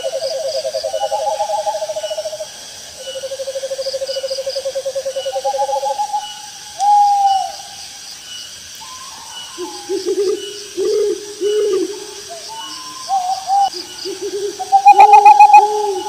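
Owls calling over one another: long, rapid trilled hoots for the first six seconds, then shorter wavering hoots in quick bursts, loudest near the end. Crickets chirp faintly throughout.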